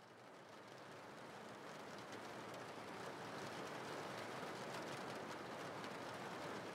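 Steady falling rain, a background rain-sound track that fades in over the first two or three seconds and then holds steady, with faint patter of individual drops.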